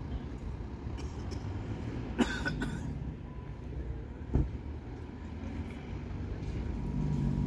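Low engine rumble of an approaching Bustech ZDI city bus, its engine note growing louder near the end as it draws near. A brief sharp noise sounds about two seconds in and a short thump about four seconds in.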